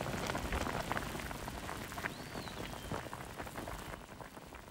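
Broth with radish boiling hard in a pot, a dense steady bubbling and popping that grows quieter toward the end.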